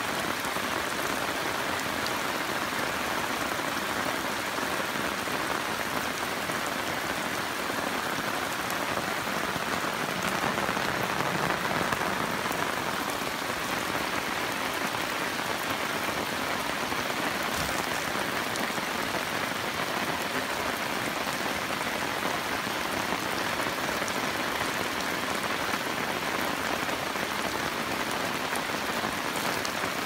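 Steady rain falling, a little heavier for a couple of seconds around ten seconds in.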